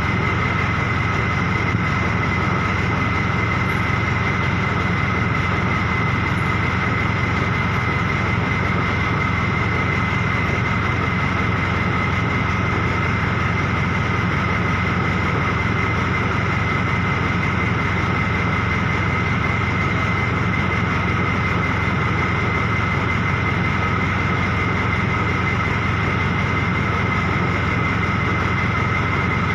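An engine idling steadily, with an unchanging low rumble and a constant high whine over it.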